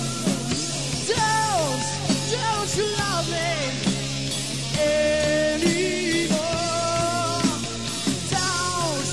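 Rock band playing: drums and bass under a lead melody of sliding, bending notes.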